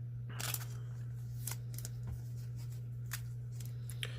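Baseball trading cards being handled: a few short, scattered slides and rustles of card stock, over a steady low hum.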